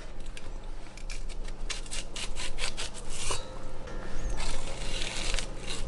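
A knife slicing kernels off an ear of fresh corn in repeated scraping strokes, with cut kernels dropping into a stainless steel bowl as quick small clicks.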